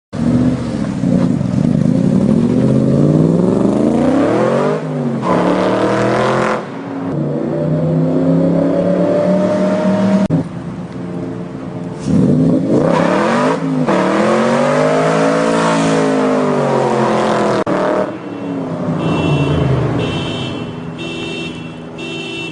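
Loud V8 crate-engine exhaust of an AC Cobra revving hard, its pitch climbing and dropping through gear changes in two runs, the second rising and then falling as it passes. Near the end a car alarm set off by the exhaust sounds in repeating high-pitched pulses.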